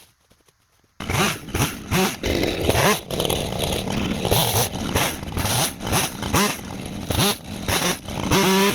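A two-stroke 50cc professional chainsaw starts abruptly about a second in and runs loud, its engine revving up and dropping back again and again.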